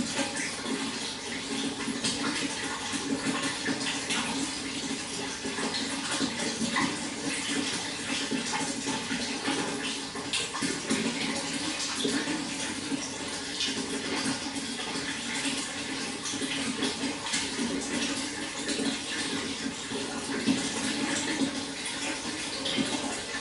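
Running water flowing steadily, with many small splashes and gurgles.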